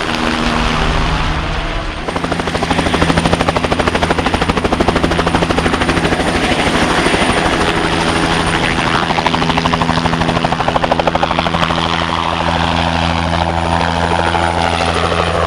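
Bell 505 Jet Ranger X helicopter running, its single Arrius turbine and rotor making a steady, rapid beating pulse with a thin high whine over it. It grows louder about two seconds in.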